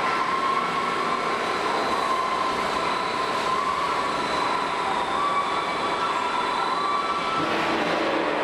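Large plate rolling machine running, its rolls turning and bending a thick steel plate into a cylinder. It makes a steady mechanical noise with a high, wavering squeal-like tone, and a lower hum joins near the end.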